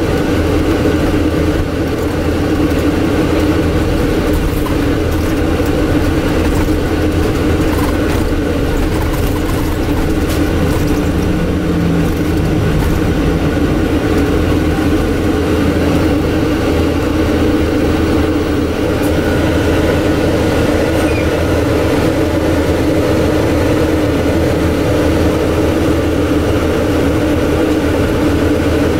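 Inside the cabin of a moving Scania N250UD double-decker bus: the air-conditioning unit gives a loud, steady drone that largely covers the engine, which runs faintly beneath it.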